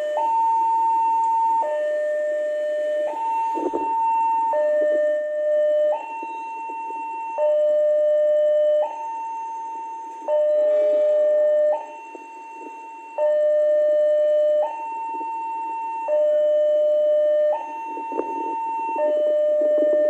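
Railway level-crossing warning alarm sounding a slow two-tone high-low signal, each tone held about a second and a half, alternating without a break, over the noise of waiting motorbikes and traffic. It warns that the crossing is closed for an approaching train.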